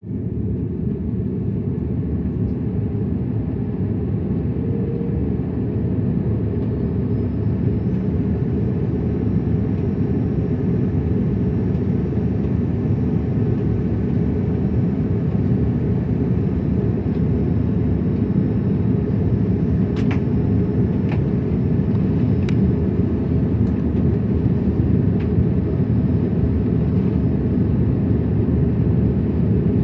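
Steady low rumble of an Airbus A330 airliner in flight, heard from inside the passenger cabin, with a faint high whine above it. A few light clicks about two-thirds of the way through.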